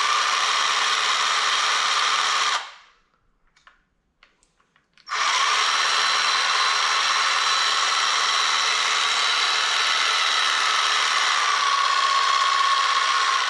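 Ryobi 18V cordless reciprocating saw running at a steady speed after its safety lever and trigger are pressed. It winds down about two and a half seconds in, gives a few faint clicks, and then starts again about five seconds in, running steadily before stopping.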